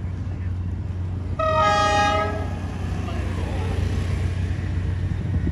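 An approaching diesel locomotive sounds its horn once, a chord of several notes lasting about a second, over a steady low rumble.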